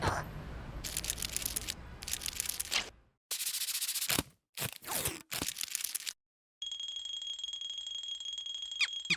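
Cartoon sound effects: a run of short crackling noise bursts broken by brief silences, then a steady high-pitched electronic tone, like an alarm, for the last couple of seconds.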